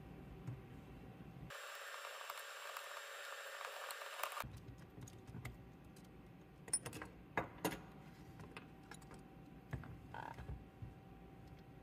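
Scattered light clicks and clinks of small parts being handled, the sharpest a few seconds past the middle, after a steady hiss of about three seconds near the start.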